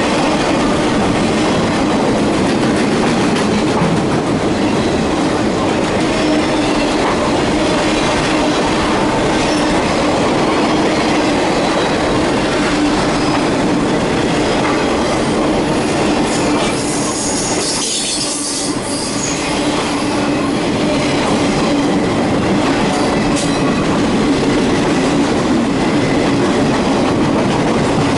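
Freight train of enclosed autorack cars rolling steadily past at close range: continuous wheel-on-rail rumble and rattle. A high wheel squeal rises briefly about two-thirds of the way through.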